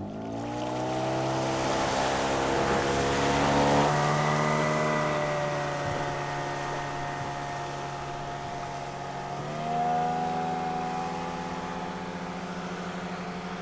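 Small outboard motor on an inflatable boat throttling up and running at speed on calm water. Its pitch climbs quickly at the start, holds steady, and steps up again about ten seconds in.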